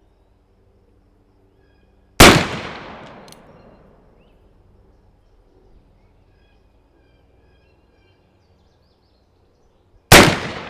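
Two shots from a Pietta 1858 Navy .36 caliber percussion revolver firing black-powder loads, about eight seconds apart: the first about two seconds in, the second near the end. Each is a sharp report with an echo that dies away over about a second and a half.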